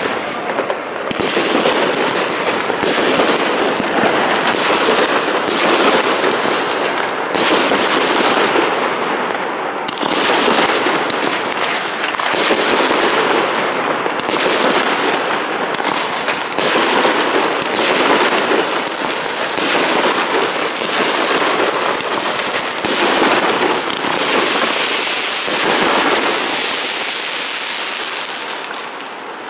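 Fireworks going off in a dense barrage: sharp bangs about once a second over a continuous crackle from many shells at once. Near the end a high fizzing hiss takes over as the barrage dies down.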